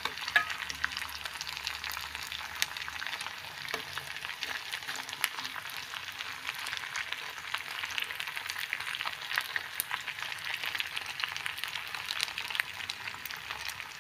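Semolina dough snacks deep-frying in hot oil: a steady sizzle with frequent small crackles and pops. They are fried through and crisp.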